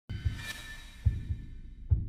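Logo intro music sting: deep heartbeat-like double thumps about once a second, opening with a bright shimmering chime that fades away.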